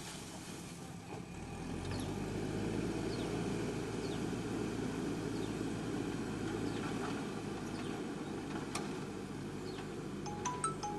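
JCB 3DX backhoe loader's diesel engine running steadily under work, getting somewhat louder about two seconds in. A single sharp click comes near the end.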